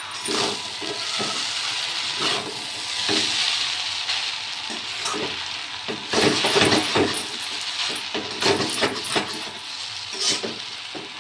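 Chow mein stir-frying in a hot pan: a steady sizzle, with a utensil scraping and clattering against the pan as it is stirred, busiest about six seconds in.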